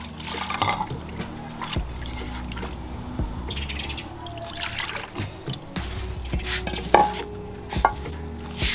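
Water poured and sloshed in an earthenware grinding bowl as it and its wooden pestle are rinsed, then tipped out. Two sharp knocks come near the end as the bowl and pestle are set down, over background music.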